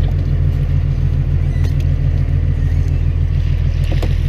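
Fishing boat's engine running steadily with a low hum. Near the end, water splashes as a wire-mesh fish trap is hauled out of the sea.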